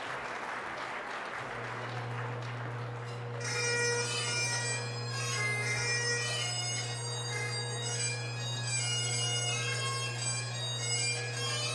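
Audience applause dying away as bagpipe drones strike up about a second and a half in, joined a couple of seconds later by the chanter playing a melody over the steady drone.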